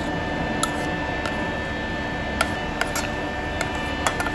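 A metal spoon clinking and scraping against a stainless steel pot while mixing rice, tuna and egg, about eight sharp clicks at irregular intervals. Underneath runs the ship's steady machinery hum.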